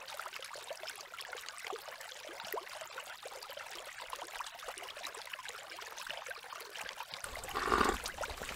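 Spring water trickling down a narrow stone channel, a fine, steady trickle. Near the end comes a louder burst of splashing water as water from the spring is cupped and splashed onto a face.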